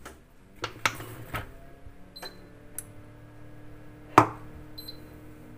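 Induction hob's touch controls being tapped with a finger, giving clicks on the glass and two short high beeps; a sharper knock comes about four seconds in. About a second and a half in, the hob starts heating the stainless steel pan with a steady low hum.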